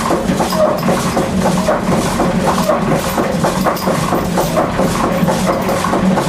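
Working windmill machinery running inside the mill: a loud, steady rumble with a fast, continuous clatter.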